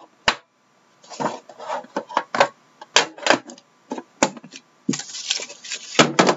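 A hard cardboard Panini Dominion card box being handled: its lid taken off and the box turned and set on the desk, giving a string of sharp clicks, taps and short rustles, with denser rustling near the end.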